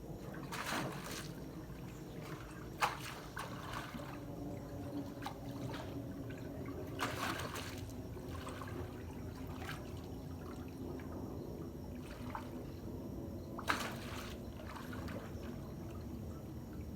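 Swimming pool water sloshing and lapping, set moving by a magnitude 7.1 earthquake, with a few sharper splashes about a second in, near three and seven seconds, and near the end.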